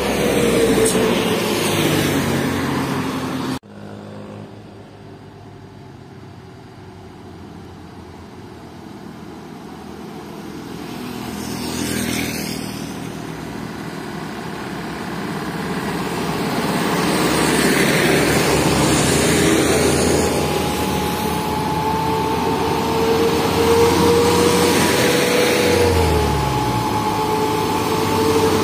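Diesel cargo trucks driving past on a road one after another, engines running over tyre noise, with a sudden cut about three and a half seconds in. In the last several seconds a truck passes close with a steady whine that drops in pitch as it goes by.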